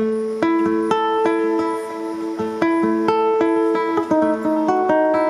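Music: a plucked string instrument playing a melody of ringing single notes, about two or three a second, starting abruptly.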